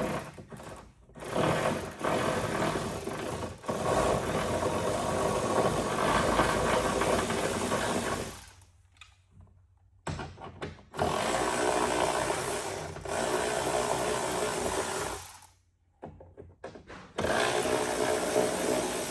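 Power drill driving out 7 mm hex-head screws from the SUV's rear trim panels, running in three spells of several seconds with short pauses between.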